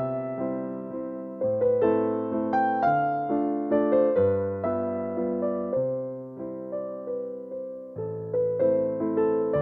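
Background piano music: gentle chords and a melody, each note struck and decaying, chords changing about every second or two.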